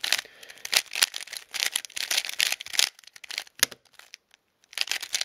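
A plastic 3x3 speedcube being turned quickly by hand: a rapid run of clicking, clacking layer turns, with a short pause about four seconds in before the turning starts again.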